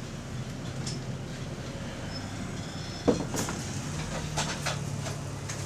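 A bus's engine running steadily, heard from inside the cabin, with a sudden loud clunk about three seconds in, followed by a spell of rattling and clicking. After the clunk the engine settles into a steadier low hum.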